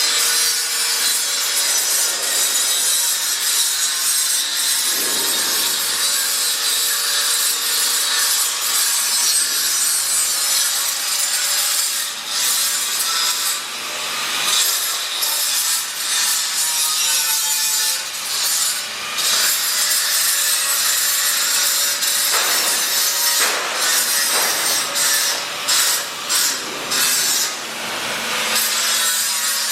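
Continuous harsh rasping and scraping of a tool working on material, with a few short breaks near the end.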